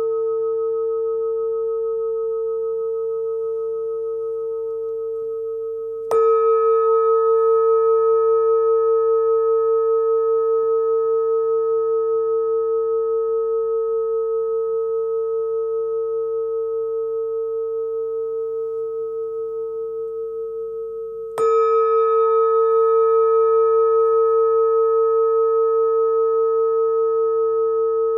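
Small hand-hammered singing bowl, about 12 cm across and tuned near 450 Hz (A), ringing with a steady tone. It is struck twice, about six seconds in and again about twenty-one seconds in; each strike gives a bright chime that rings on and fades slowly with a gentle wavering.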